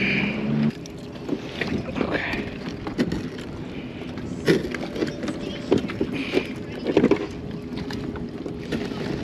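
Scattered knocks, clicks and rustles of hands working a fish in a rubber landing net and handling gear on a plastic fishing kayak. A steady low hum cuts off abruptly in the first second.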